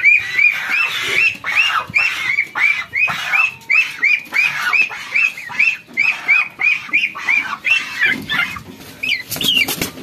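Poultry calling: one bird peeps over and over in short, high notes that rise and fall, about three a second, for some eight seconds. A brief rattle of knocks follows near the end.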